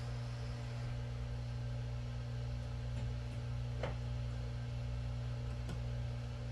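Steady low electrical hum, with a few faint ticks about three and four seconds in.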